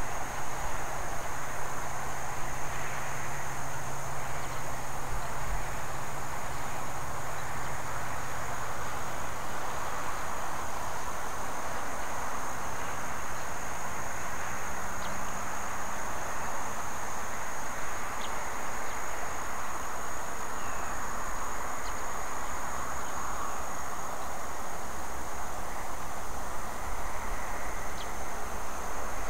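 A steady high-pitched insect drone over a constant even hiss, with a few faint ticks.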